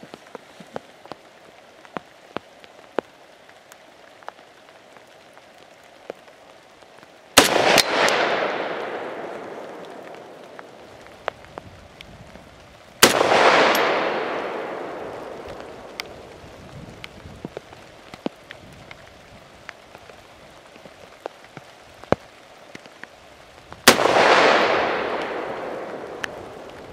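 Three shots from a Norinco M305 semi-automatic rifle in .308 Winchester: one about seven seconds in, the next some six seconds later, and the last near the end. Each is a sharp crack followed by a long fading echo. Faint scattered ticks of rain fall between the shots.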